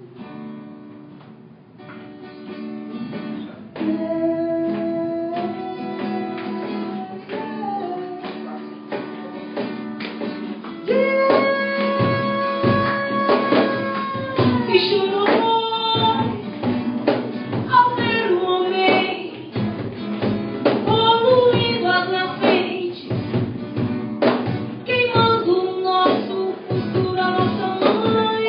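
Live acoustic music from two acoustic guitars and a cajón, with a woman singing. She holds long notes that grow louder about four seconds in and again about eleven seconds in, then sings a quicker, more rhythmic line over the strumming.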